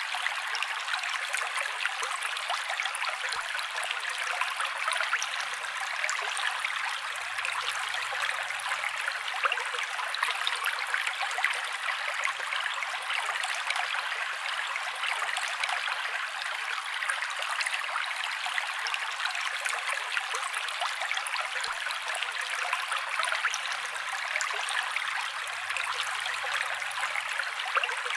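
Fountain water falling and splashing steadily, an even, unbroken trickling rush with little low end.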